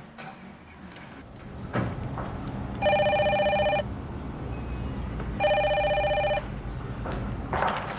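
A telephone rings twice, each ring about a second long with a fast electronic trill. A thump comes just before the first ring.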